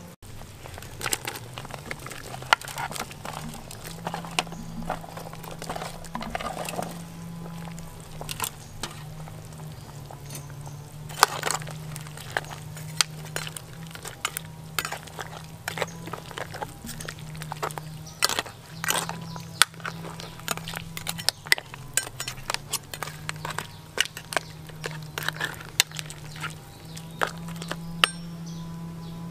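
Kitchen work sounds: many sharp clinks and knocks of utensils and dishes, irregular and scattered throughout, over a steady low hum.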